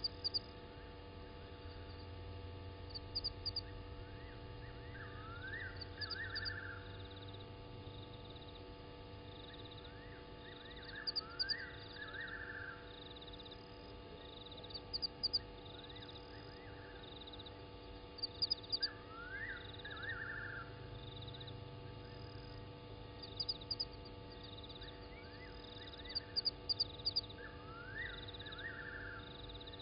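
Night chorus of frogs and insects at a bush waterhole. Clusters of three or four sharp, high clicks recur every few seconds and are the loudest sounds. Short high chirps repeat about once a second, and a rising call ending in a trill comes every six to eight seconds, all over a steady electrical hum.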